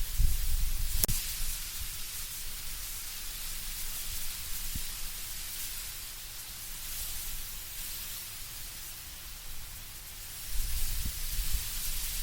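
Wind through trees with leaves rustling in a steady hiss, the gusts swelling with a low rumble at the start and again near the end. One sharp click about a second in.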